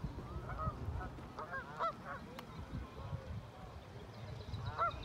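Waterbirds on the lake calling: several short, harsh, honking calls in a few clusters, the loudest near the end, over a steady low rumble.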